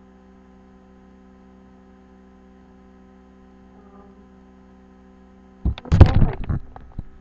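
A faint steady electrical hum, then about five and a half seconds in a loud burst of rustling and knocks as the webcam is handled and something brushes right against it.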